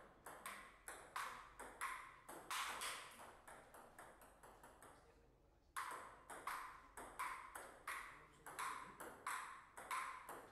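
Table tennis rally: the ball clicking sharply off the paddles and the table, about three hits a second. One rally ends about three and a half seconds in, and a new one starts nearly six seconds in and runs on.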